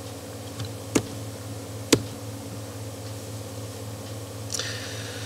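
Two sharp computer mouse clicks about a second apart, over a steady low electrical hum.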